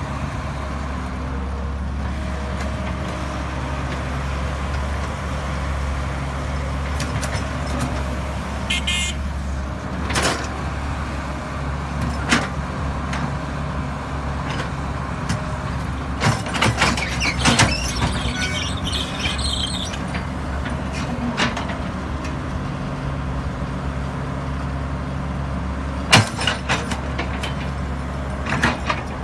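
Cat E110B hydraulic excavator's diesel engine running steadily while it digs soil. Sharp metallic clanks from the bucket and boom are scattered through, with a cluster about halfway and the loudest near the end.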